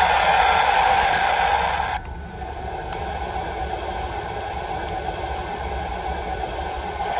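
Hissing from the onboard sound system of a stationary MTH O-gauge C&O M1-A steam-turbine locomotive model. The hiss is loud for about two seconds, drops to a quieter steady hiss, and cuts off near the end.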